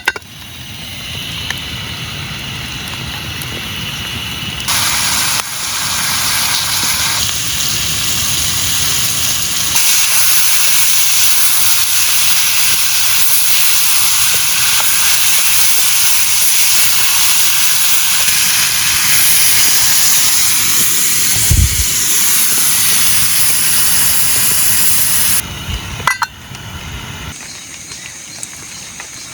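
Marinated vegetables frying in hot oil in a pan: a loud, steady sizzle that jumps louder about five and again about ten seconds in, and cuts off sharply near the end. A short low thump comes a few seconds before it stops.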